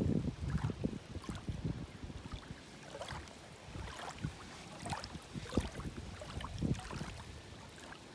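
Wind buffeting the microphone, a low rumble that dies down after about a second, then faint steady background noise with a few scattered soft ticks.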